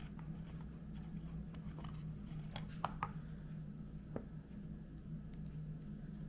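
Assembly lube being applied to the bearings and transmission gears of a motorcycle engine's open crankcase: faint wet squishing and a few light clicks of the parts, about three close together near the middle and one more a second later, over a steady low hum.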